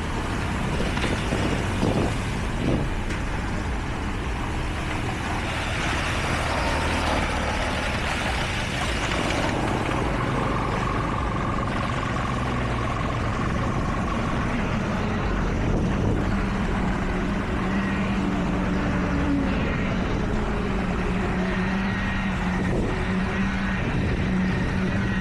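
Heavy construction machinery running steadily: a continuous engine din, with a steadier low hum coming in about two-thirds through.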